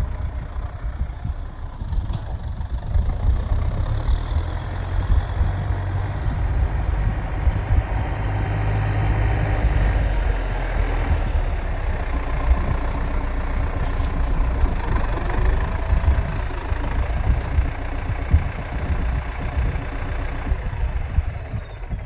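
Farm tractor engine running steadily with a deep rumble, pulling a trailer while carting silage.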